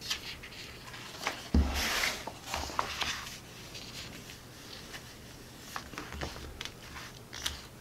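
A rulebook being opened by hand: a soft thump about a second and a half in as the cover goes down, a short rustle of paper sliding, then light taps and clicks of the pages being flattened.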